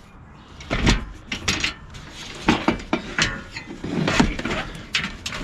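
A metal table being shoved and wedged into a car: a string of uneven knocks, clunks and scrapes as it bumps against the car's interior.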